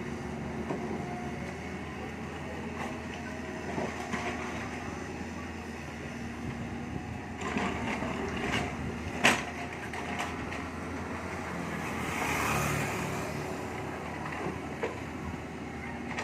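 An engine running steadily, with a sharp knock about nine seconds in.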